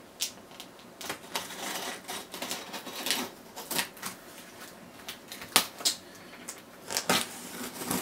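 Cardboard shipping parcel being opened and handled by hand: irregular scraping, rustling and clicking of cardboard and packaging, with two sharper clicks near the end.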